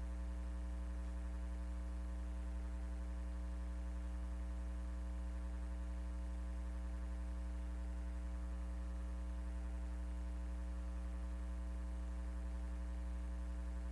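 Steady electrical hum: a low drone with a buzzy row of evenly spaced overtones, unchanging, with no programme sound over it.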